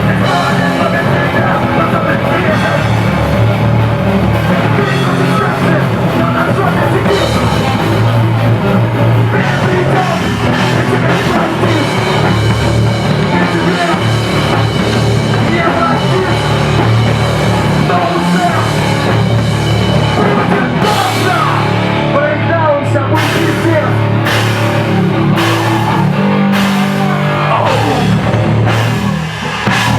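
Live rock band playing loud, heavy rock with a driving drum kit; the sound drops out briefly near the end before the band comes back in.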